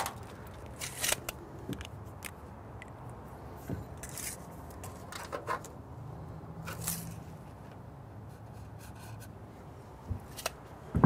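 Scattered light clicks and scrapes of a steel tape measure being extended and handled, and marks being made, inside a metal truck toolbox.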